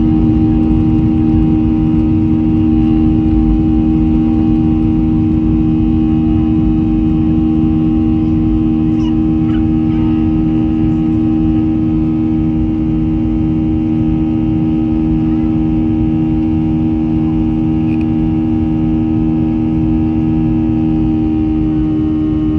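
Boeing 737-800's CFM56-7B jet engines running at steady high departure thrust: a loud, even drone with strong low humming tones over a deep rumble.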